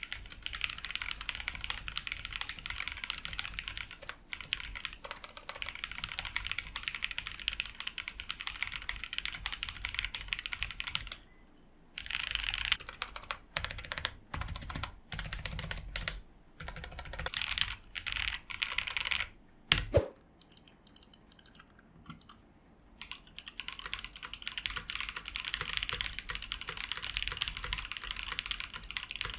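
Typing sound test on a Fantech Maxfit70 mechanical keyboard: steady fast typing at first, then a short pause and separate short runs of keystrokes, two loud clacks about two-thirds of the way in, a brief lull, and steady typing again near the end.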